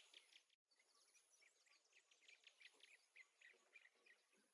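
Near silence, with faint, irregular high-pitched chirping in the background and a brief total dropout about half a second in.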